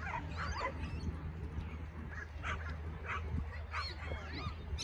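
A dog barking repeatedly in short, high-pitched barks, several in quick succession and then more near the end.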